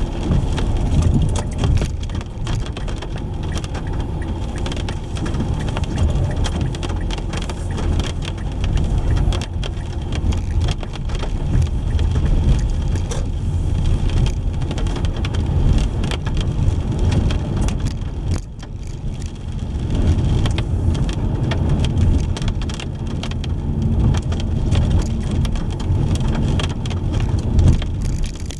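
Car driving in the rain: a steady low road rumble with many small raindrop ticks, easing briefly about two-thirds of the way through.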